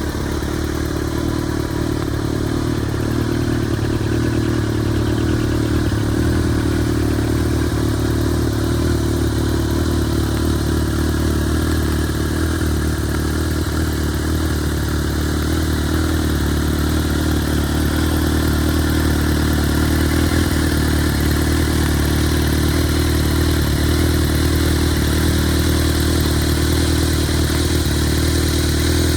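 Kawasaki ZRX1200 DAEG's inline-four engine running steadily at idle through its exhaust, with no revving.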